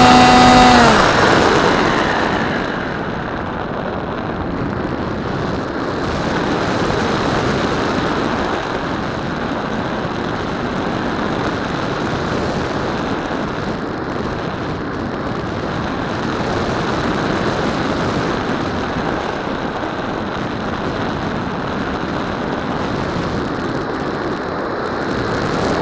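AXN Floater Jet's electric pusher motor whining, then dropping in pitch and cutting back about a second in. After that, a steady rush of wind over the airframe and the onboard camera's microphone as the plane glides.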